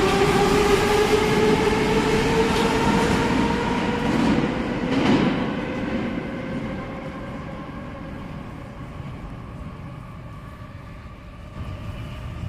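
Metro train pulling out of the station: its electric traction motors whine with a steadily rising pitch as it accelerates, under the wheels' rumble. The sound fades as the train goes into the tunnel.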